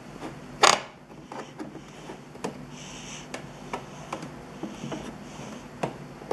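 Fingers handling a plastic Play-Doh mould and pressing modelling dough into it, giving small scattered clicks and taps, with one louder brief noise just under a second in. A faint steady hum runs underneath.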